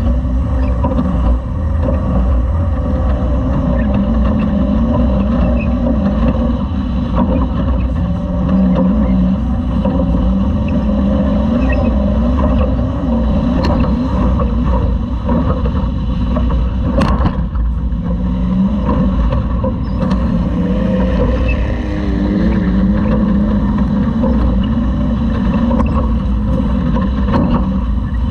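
Class 2000 off-road race truck running at race pace, heard from on board over a loud, dense rumble. The engine note wavers up and down as the revs change. One sharp knock comes about seventeen seconds in.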